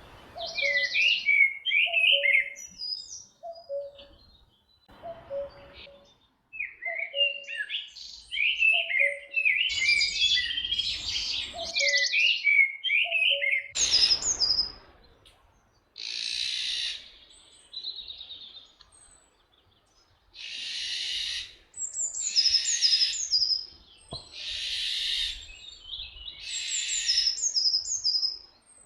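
Chorus of small songbirds with a low two-note call repeating about once a second. From about halfway, an Iberian Eurasian jay gives harsh, rasping screeches, about six of them, each roughly a second long, with other birds still chirping between them.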